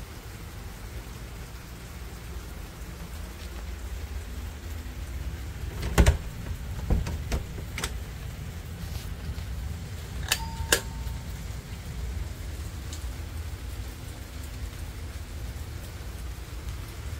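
Steady low rumble of wind and phone handling, with a few knocks about six to eight seconds in. About ten seconds in comes a short electronic beep between two clicks from a hotel door's key card lock.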